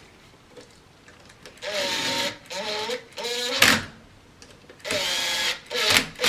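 Cordless drill/driver running in several short bursts, its motor pitch wavering as it drives screws, with a sharp click a little over halfway through.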